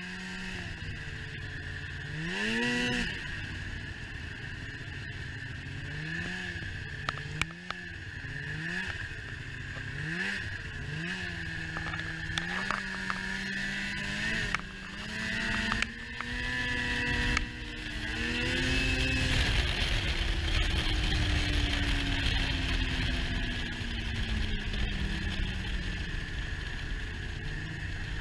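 Snowmobile engine riding on snow, its pitch rising and falling in short throttle swells. About two-thirds through it pulls harder with a loud rush, then eases off into a long falling pitch as it slows. A few sharp knocks come in between.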